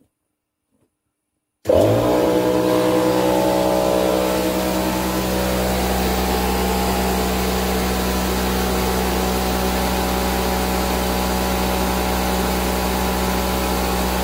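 Workshop air compressor kicking in about a second and a half in: a sudden start with a brief rising whine as its motor spins up, then running steadily to build pressure for the air line.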